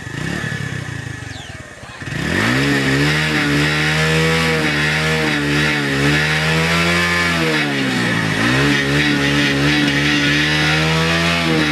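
A small engine running loudly. It starts suddenly about two seconds in and holds a steady note, its pitch rising and falling slowly as the revs change, with a deeper dip near the end.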